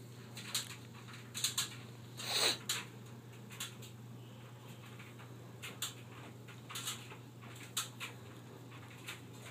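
Dog sniffing and shifting at the floor with its nose down: a scatter of short sniffs and small taps, with one louder, longer sniff a little over two seconds in, over a steady low hum.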